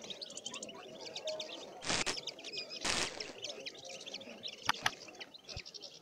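Many small caged songbirds chirping and twittering at once, short high calls overlapping one another. Two brief bursts of rushing noise come about two and three seconds in.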